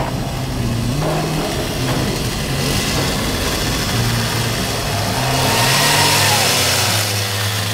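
An engine running and revving, its pitch stepping up and down, growing louder to a peak about six seconds in.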